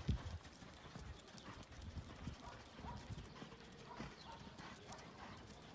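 Faint hoofbeats of a Pura Raza Española stallion moving under a rider on a sand arena surface, a loose run of soft footfalls.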